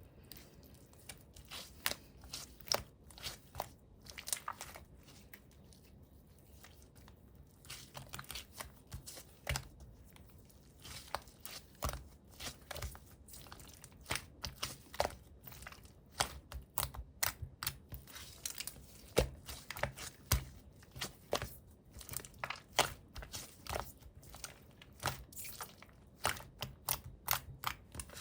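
Clear slime being pressed and stretched by hand, giving a string of irregular sticky clicks and pops that come thicker in the second half.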